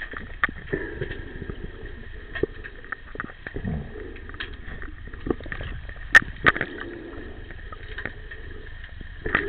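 Underwater sound in a swimming pool during an underwater hockey game: muffled water noise over a faint steady high hum, broken by many scattered clicks and knocks, the sharpest one a little past six seconds in.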